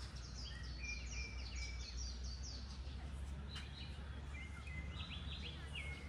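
Small birds chirping, with quick short falling notes several times a second, over a low steady rumble.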